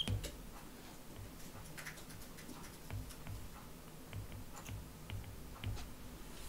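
Faint, irregular taps and clicks of a stylus writing on a tablet screen.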